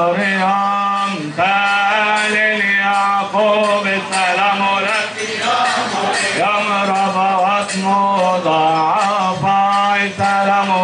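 Male chanting of a melismatic Coptic church hymn, the melody winding and ornamented over a steady low held note.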